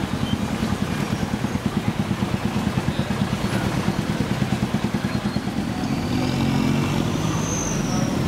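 Motor vehicle engines idling with a fast, even pulsing. About six seconds in the sound grows louder as a heavily loaded 4x4 pickup truck moves past.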